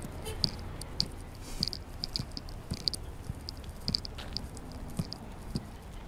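Someone chewing close to the microphone: irregular small wet clicks and soft thumps, several a second, over a low hum.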